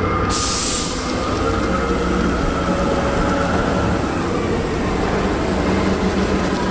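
Large military amphibious bridging vehicle driving slowly past at close range, its heavy engine running with a steady low drone. A short burst of hiss comes about half a second in.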